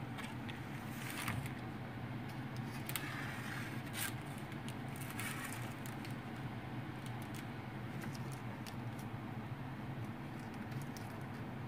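A metal offset spatula scraping and tapping over baking paper on a metal tray, with scattered light clicks and rustles as chocolate sprinkles are pushed about, over a steady low hum.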